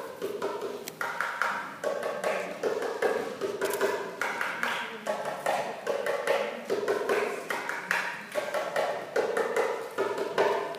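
Egyptian tabla (darbuka goblet drum) played in an improvised solo: fast, dense runs of sharp strokes with ringing drum tones.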